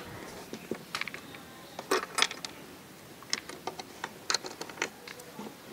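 Irregular light clicks and metallic clinks of small parts being handled while the motorcycle battery is put back in place. The loudest clinks come about two seconds in and again a little past four seconds.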